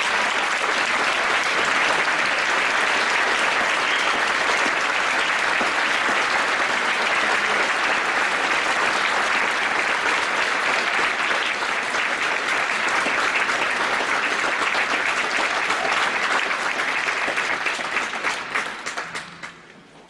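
Audience applauding at the end of a piece, steady and then dying away near the end.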